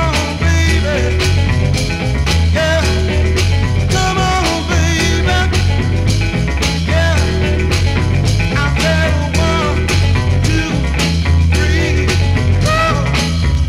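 A late-1960s funk record playing from vinyl, with a steady beat and a heavy bass line under melodic lines.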